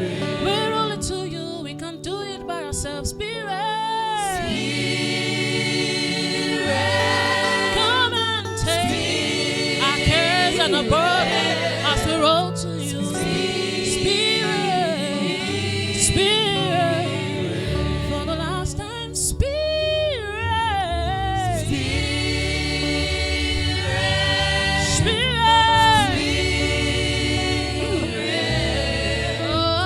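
Gospel worship music: singing voices carrying a gliding, ornamented melody over steady sustained low notes from the accompaniment.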